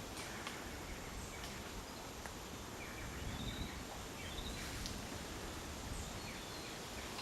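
Outdoor natural ambience with a steady background hiss, and a few faint, high, short chirping animal calls about three and four and a half seconds in.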